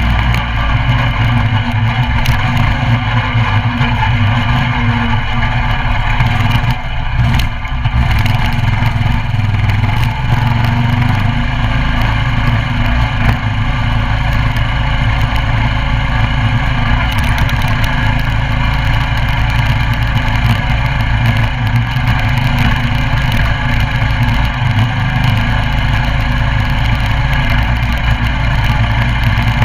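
Coleman CT200U mini bike's 196cc single-cylinder four-stroke engine running steadily during a ride, with a short dip about seven seconds in.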